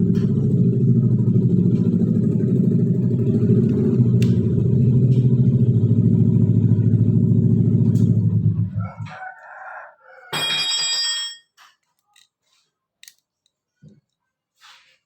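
Electric wood planer motor running with a steady low hum, then switched off about nine seconds in and quickly winding down. About a second later a rooster crows briefly, followed by a few small clicks.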